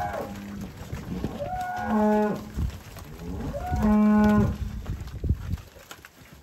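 Black cattle mooing: the end of one moo at the start, then two long moos about two seconds apart, the last the loudest.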